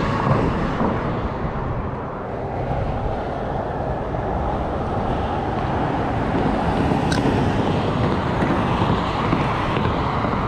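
Steady road traffic noise from cars and trucks crossing the bridge, with a single sharp click about seven seconds in.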